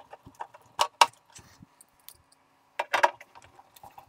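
Metallic clicks and clinks of a screwdriver and screws handled against the tape deck's metal case. The loudest come in a pair about a second in, with another cluster about three seconds in.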